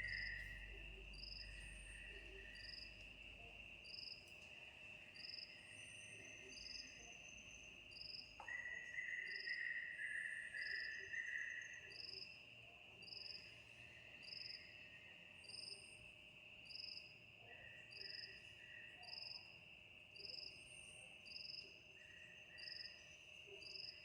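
Faint chorus of insects, crickets among them: a steady high trill with a short, higher chirp repeating about three times every two seconds, and bursts of lower chirping over it.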